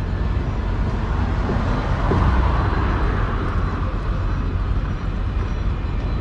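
A road vehicle passing by: a steady low rumble with a rushing swell that builds about two seconds in and fades away again.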